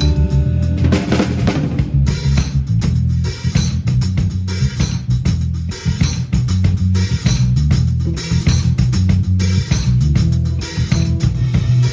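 Live band playing: bass guitar and guitar with a full drum kit, kick drum and snare, which comes in about two seconds in and keeps a steady beat.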